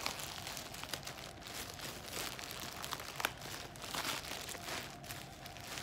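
Clear plastic garment bag crinkling and rustling as it is handled and pulled at with the teeth to open it, with scattered sharper crackles, the loudest just past three seconds in.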